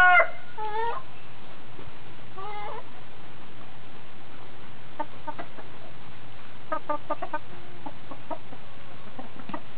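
Domestic chickens clucking: two longer calls that bend in pitch in the first three seconds, then short clucks about halfway through and a quick run of them about seven seconds in.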